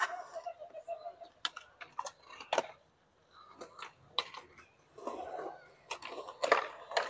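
Skateboards on a concrete skatepark: a scattered string of sharp wooden clacks from boards popping and landing, loudest near the end, with wheels rolling between them.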